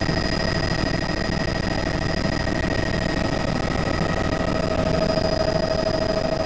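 Helicopter in flight heard from inside the cabin: a steady drone of engine and rotors with several high, constant whining tones over it.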